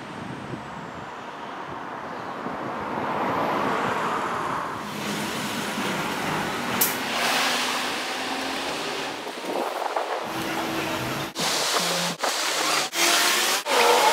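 City street traffic: a steady wash of car noise that swells over the first few seconds, with a brief sharp click about seven seconds in. Late on, the sound breaks into short pulses with sudden gaps, about twice a second.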